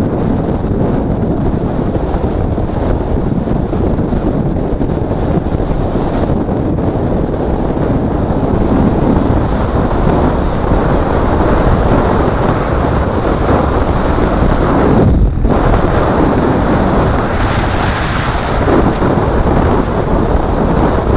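Wind rushing over the microphone of a camera on a moving motorcycle, a loud, steady rumble with road noise mixed in; the rush briefly drops away about fifteen seconds in.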